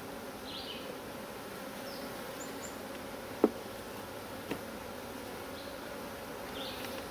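Honey bees humming steadily around an open hive. A sharp click sounds about three and a half seconds in, and a fainter one a second later.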